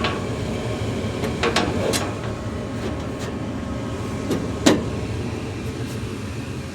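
Lennox gas furnace running in heat mode with its burners lit and the blower not yet on: a steady low rumble of burning gas and draft air. Several sharp clicks come through it, the loudest about two-thirds of the way in.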